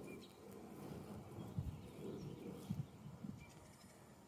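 Quiet outdoor ambience: a few faint, distant bird chirps over low, irregular rumbling.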